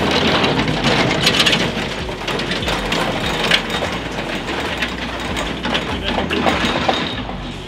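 Empty timber lorry with a flatbed log trailer driving past close by on a gravel forest track and pulling away: the engine running, with many knocks and rattles from the trailer over the bumps. It is loudest at the start and eases off slowly as it goes.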